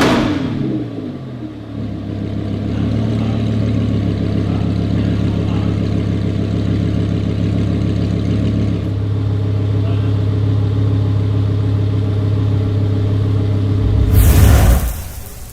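Lamborghini Huracan LP610-4's V10 engine and exhaust, revs dropping back at the start and then settling into a steady idle drone. A short loud burst comes near the end, and then the sound fades.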